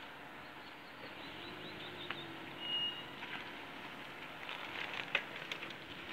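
Steady outdoor background noise with a few faint high bird chirps and scattered light clicks.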